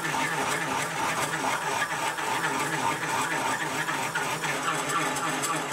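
Slitting saw on a Sieg milling machine cutting a slot into a steel workpiece: the spindle runs steadily while the saw teeth give a fast, fine ticking.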